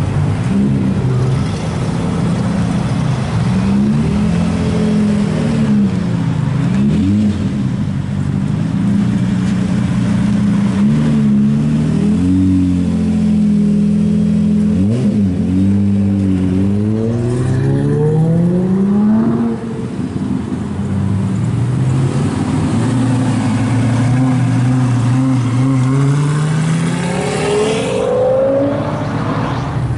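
Lamborghini Murciélago V12 engine revving and pulling away, its pitch climbing and falling again and again with the throttle. It drops sharply about two-thirds through, then climbs again near the end.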